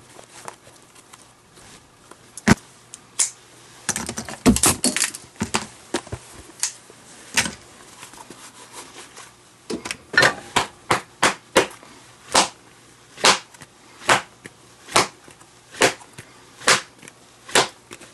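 Sharp leather smacks from a leather baseball glove being struck and worked by hand, scattered at first, then a steady run of about one smack a second over the last several seconds.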